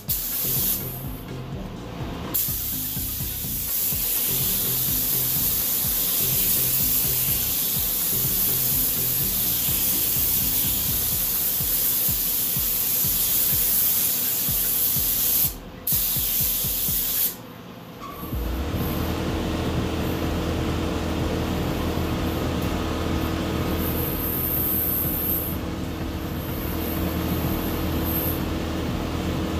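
Gravity-feed paint spray gun hissing steadily as it lays a coat of reduced black tint, the hiss cutting off briefly twice as the trigger is let go. A steady low hum comes in about two-thirds through.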